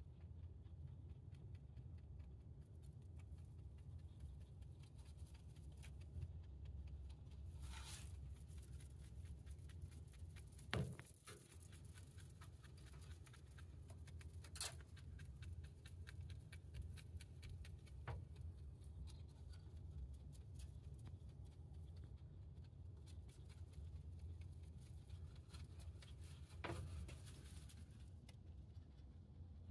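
Rabbit chewing hay: rapid, faint crunching clicks, with now and then a sharper knock or rustle of hay, the loudest about eleven seconds in. A low steady hum runs underneath.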